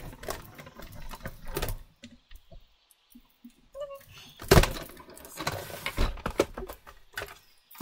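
Manual die-cutting machine being hand-cranked to roll the cutting plates and die back through its rollers for a second pass, so the die cuts fully through the paper; irregular clicks and knocks from the plates and machine, with one loud knock about four and a half seconds in.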